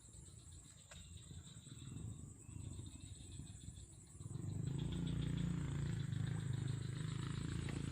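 Insects, crickets or similar, keeping up a steady high drone. About four seconds in, a louder low steady hum comes in and holds.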